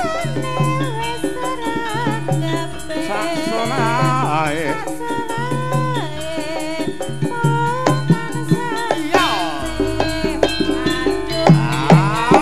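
Javanese gamelan music: a female singer's ornamented, wavering vocal line over struck bronze metallophones, gongs and repeated kendang drum strokes. The drum strokes grow sharper and louder near the end.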